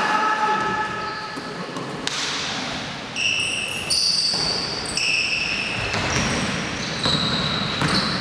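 Basketball shoes squeaking on a hardwood gym floor as players run and stop: many short, high squeals over one another, with a few basketball bounces, all echoing in a large hall.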